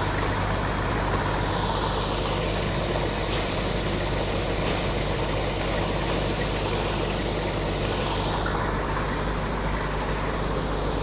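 An engine idling steadily, with a steady hiss over its low hum.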